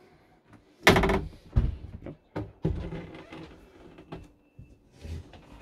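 A loud knock about a second in, then lighter knocks and rustling as a motorhome's slatted bed base, lift frame and mattress are handled by hand.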